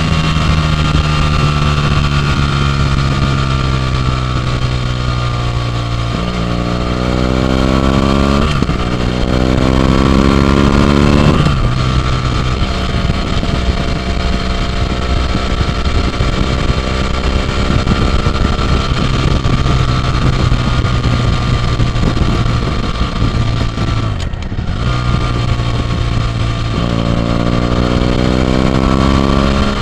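BMW F800GT's 798 cc parallel-twin engine through an AC Schnitzer Stealth aftermarket silencer, heard onboard while riding. About six seconds in the revs climb, break at an upshift, climb again and shift once more. The engine then runs at a steadier cruise, the throttle is cut briefly about three-quarters of the way through, and the revs climb again near the end.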